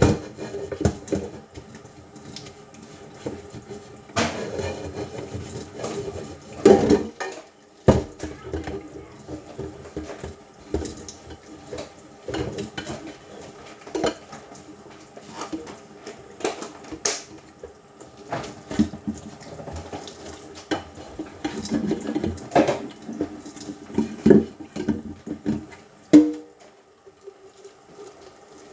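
Dishes being washed by hand in a kitchen sink: dishes and utensils knock and clink at irregular intervals, with water splashing and a tap running at times. Music plays in the background.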